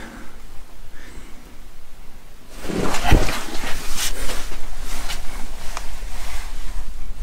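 A person crawling through a narrow cave passage, clothing and body scraping and rustling against rock and dirt. It is fairly quiet at first, then from about two and a half seconds in comes a run of irregular scrapes and knocks, the loudest about three seconds in.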